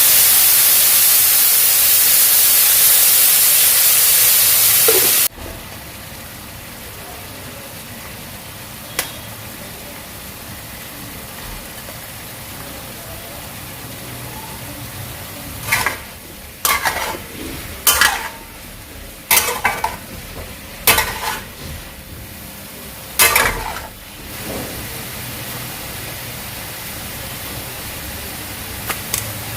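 Stir-fried noodles sizzling loudly in a hot pan for about five seconds, then cutting off suddenly. After a quiet stretch, a run of about seven short clinks and scrapes of utensils on cookware.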